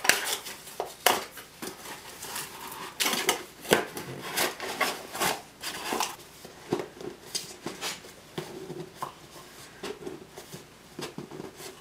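Cardboard packaging being handled and its flaps folded, a string of sharp taps, scrapes and rustles.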